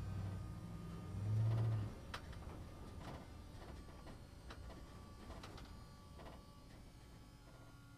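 A machine motor hums low and steady, rises briefly and then stops about two seconds in, followed by a scattering of sharp clicks and knocks.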